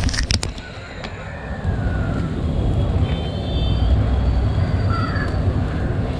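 Street traffic ambience: a steady low rumble of passing vehicles, with a few sharp clicks just after the start and faint high tones around the middle.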